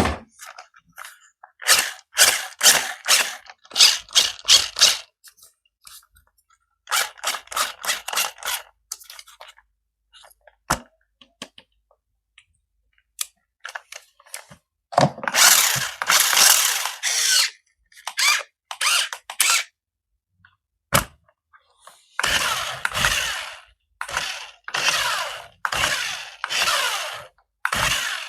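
Small electric motor of a remote-control toy car whirring in repeated short bursts, with a longer run about halfway through and a string of roughly one-second bursts near the end.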